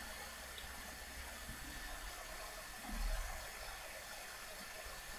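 Faint steady hiss of room tone, with a soft low thump about three seconds in from hands pressing a thin sheet of dough on a wooden pastry board.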